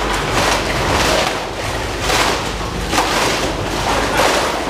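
A wearable piñata of taped plastic cups being struck again and again, the plastic crunching and clattering with each blow, a hit every half second to a second.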